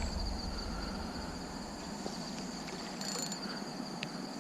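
Night insects such as crickets trilling steadily in a high, fast pulsing chorus, over a low background hiss.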